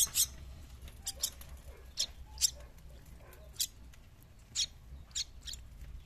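Crested myna nestling giving short, sharp, high-pitched begging squeaks, about nine of them at uneven intervals, while it is being hand-fed.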